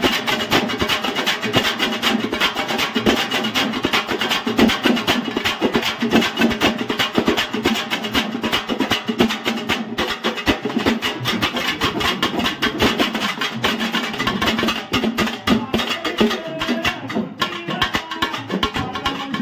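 Pambai and thappattai drums beating a fast, dense rhythm together, Tamil folk percussion with sticks on drum heads.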